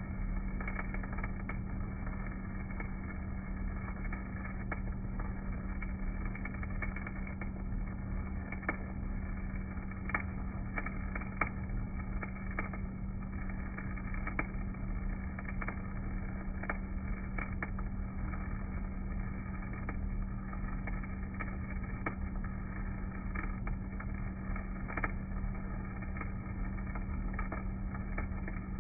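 Stick (shielded metal arc) welding with an EZ50 basic electrode: the arc crackles and pops irregularly over a steady drone with a constant low hum, from the Elin rotary DC welding generator running.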